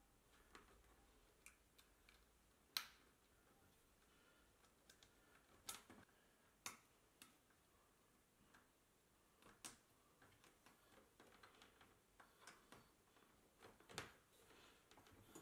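Near silence broken by faint, scattered clicks and taps, about five clearer ones, from small plastic cable clips and cables being handled against a metal desk frame.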